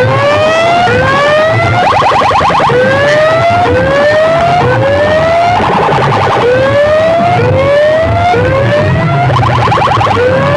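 Siren sound effect blasted over a competition DJ sound system: a rising whoop repeats about once a second, a fast warbling tone breaks in every few seconds, and a bass pulse runs underneath.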